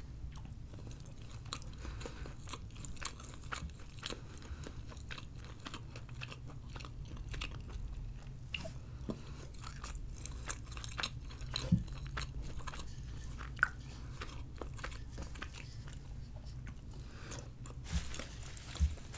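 Close-miked chewing of spaghetti and meatballs: wet mouth sounds with many small clicks and smacks, and a few sharper smacks about two-thirds of the way through.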